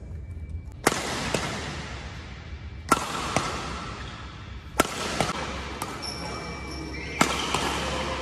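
Four sharp racquet strikes on a shuttlecock, about two seconds apart, each ringing out with a long echo from the hall. The racquet is a Yonex Astrox 99 Pro badminton racquet.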